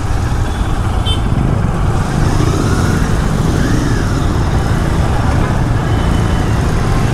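Royal Enfield Continental GT 650's 648 cc parallel-twin engine running steadily while riding in traffic, its exhaust pulse close and loud, with road and traffic noise around it.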